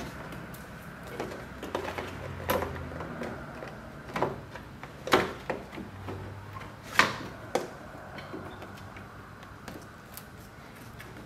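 Sharp plastic knocks and clicks of a headlight assembly being handled and fitted into the car's front end, several scattered knocks with the loudest about five and seven seconds in. A low steady hum runs underneath.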